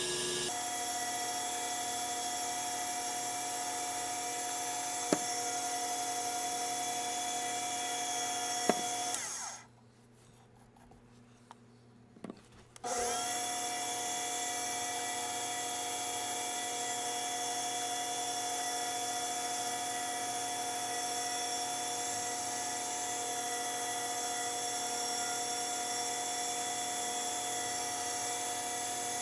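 Small lathe running steadily with a whine of several steady tones while a ring on a mandrel is wet-polished with Zona polishing paper. About nine seconds in it cuts off, a couple of faint clicks follow, and about four seconds later it starts up again, rising to speed, as the next grit is taken up.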